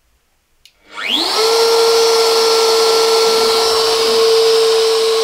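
A Shapeoko CNC router's spindle motor clicking on about a second in, spinning up in a quick rising whine, then running at a steady high speed without cutting yet.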